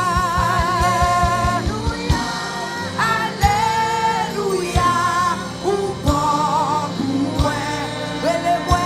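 Live gospel worship music: sung melody with vibrato over a band. A bass drum beats rapidly for the first two seconds, then strikes about every second and a half.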